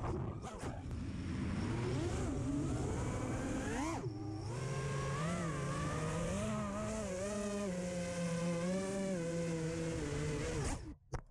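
FPV racing quadcopter's brushless motors and propellers whining, the pitch rising and falling with the throttle, with a sharp dip and surge about four seconds in. The motors cut off shortly before the end, followed by a couple of short clicks.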